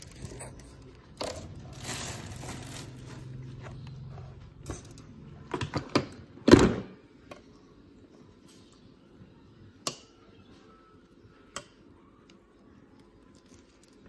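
Vacuum-cleaner parts being unpacked: plastic wrapping crinkling and parts and cardboard being handled, with a loud knock about six and a half seconds in, then mostly quiet with a couple of light clicks.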